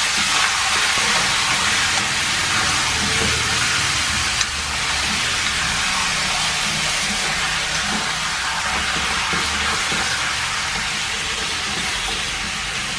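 Chopped marinated duck frying in a hot pan: a steady sizzling hiss.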